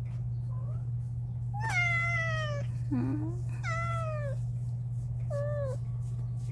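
Stray kitten meowing three times, each call falling in pitch and the last one shorter, with a brief low rising call between the first two. A steady low hum runs underneath.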